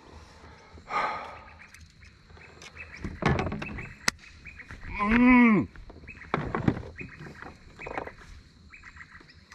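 A man's wordless whoop, one loud rising-then-falling call about five seconds in, celebrating a fish just landed. Around it are scattered knocks and rustles from handling the fish in the landing net on the kayak.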